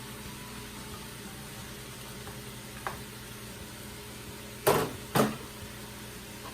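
Chicken, mushrooms and shallot sizzling steadily in a hot Ninja Foodi pot on sauté, over a low appliance hum. A faint click about three seconds in, then two sharp clatters half a second apart near the end.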